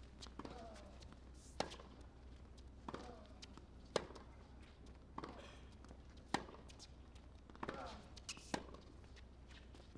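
Tennis rally: a racket strikes the ball again and again and it bounces on the hard court, a sharp hit or bounce about every second, the loudest about four seconds in.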